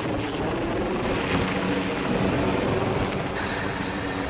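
Steady whirring of aircraft rotors in flight. About three seconds in, the sound changes to an even hum with several held tones.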